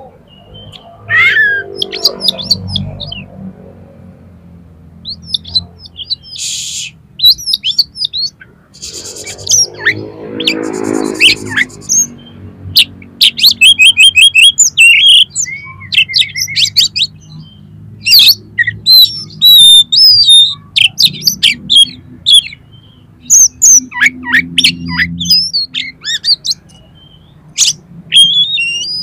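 Oriental magpie-robin singing: a varied run of sharp chirps, whistled phrases and fast rattling trills with short pauses between them. A low murmur sits under the song about ten seconds in.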